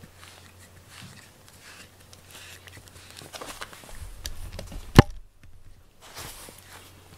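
Grooming brush stroking through a cat's fur: a run of soft, scratchy rasps from the bristles, with one sharp knock about five seconds in.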